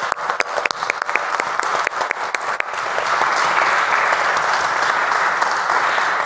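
Congregation applauding: separate claps at first, thickening about three seconds in into full, dense applause.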